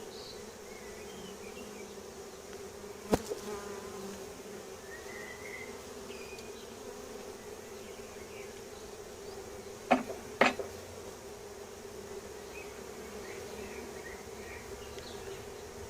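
Honey bees of an opened Langstroth hive buzzing in a steady hum. Three sharp knocks cut across it, one about three seconds in and two close together about ten seconds in.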